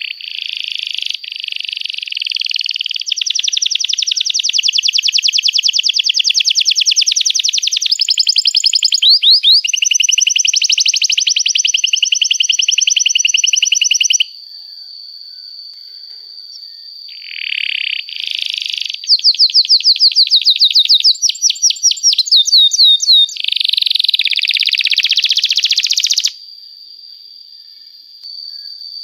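Domestic canary singing long, fast trills of rapidly repeated notes with some gliding chirps. It breaks off about halfway, leaving only a faint steady high tone, then resumes with more trills before fading near the end.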